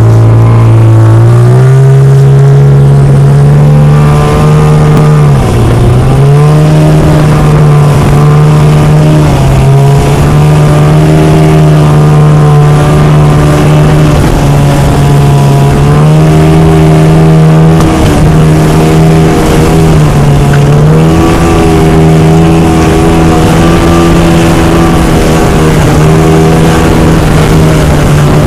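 Outboard motor on an inflatable boat running at a steady pitch, rising about a second in and dipping briefly twice, near five and twenty seconds in, as the throttle eases and comes back. A steady hiss of water and wind lies underneath.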